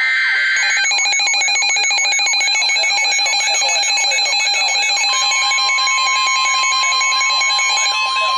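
Emergency Alert System tones on NOAA Weather Radio. The buzzing digital bursts of the SAME data header cut in abruptly, then the steady 1050 Hz weather radio alert tone begins about five seconds in, announcing a new warning. A repeating siren-like whoop, a few sweeps a second, sounds underneath.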